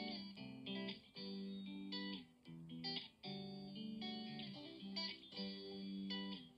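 Background music: guitar playing a melodic line of plucked notes in short phrases.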